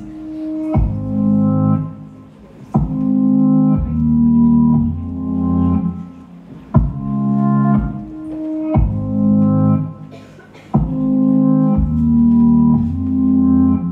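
Instrumental intro of a recorded song: slow, sustained organ-like keyboard chords, a new chord struck about every two seconds, some with a deep bass note beneath, and no vocals.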